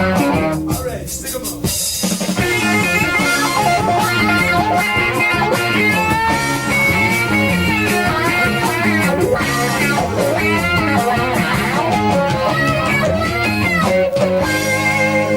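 Rock band playing an instrumental break: an electric lead guitar plays a wavering, bending melody over bass guitar and drum kit.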